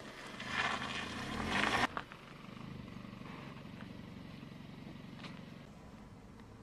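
A motor vehicle's engine revving up under a rush of noise, cut off suddenly about two seconds in, followed by a low steady rumble.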